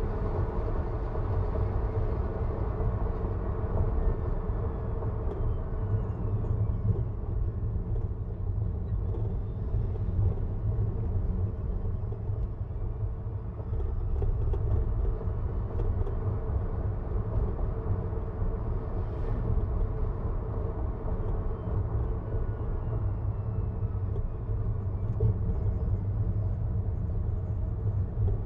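Steady low road rumble of a Tesla Model 3 Performance on the move: tyre and wind noise from an electric car with no engine note. A faint high whine glides down in pitch now and then.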